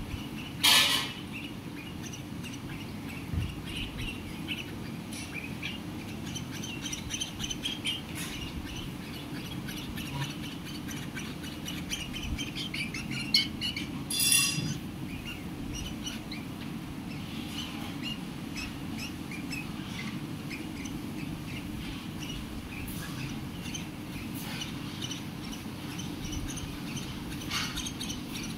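Parrots chirping with many short, high calls. Two loud calls stand out, one about a second in and one about halfway through, over a steady low background noise.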